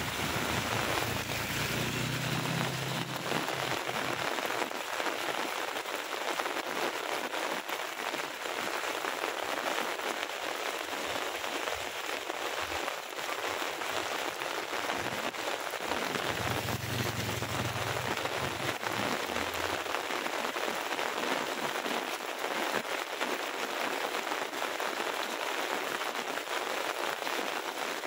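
Heavy rain pouring steadily, an even hiss of downpour.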